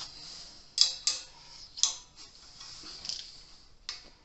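Antenna hardware being handled during assembly: a handful of short, sharp metal clicks and light knocks at irregular intervals.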